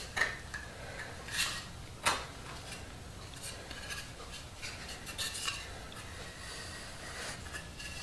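Thin brass rod sliding and scraping through drilled holes in a small wooden board, with light metal-on-wood clicks and taps. The sharpest clicks come about one and a half and two seconds in.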